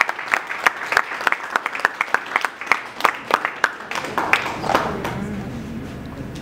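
A small audience applauding, with many separate claps, which dies away about five seconds in.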